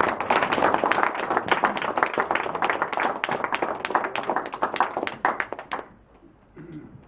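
Audience applauding, dense clapping that thins out and dies away about six seconds in.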